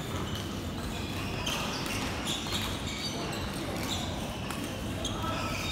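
A table tennis ball bouncing lightly a few times at irregular intervals, with faint voices in the background.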